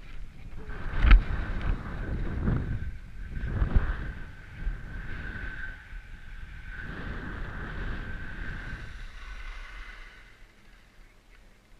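Wind buffeting the microphone of a camera carried down a ski slope at speed, with a sharp knock about a second in. The rushing dies down after about nine seconds.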